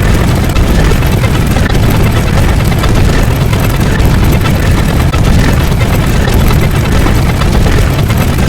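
Loud, dense rumbling noise, heaviest in the low end, with no clear rhythm or tune; it cuts off suddenly at the end.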